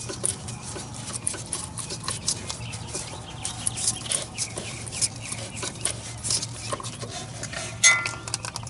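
Ratchet and deep-well socket clicking over and over while working the oil pressure switch loose, over a steady low hum, with a louder metallic clink near the end.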